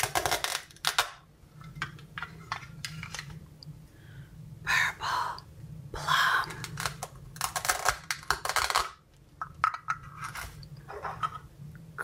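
Velcro-joined halves of plastic toy fruit being pulled and cut apart with a toy knife: several short tearing rips, with small clicks of plastic pieces knocking together and on a paper plate in between.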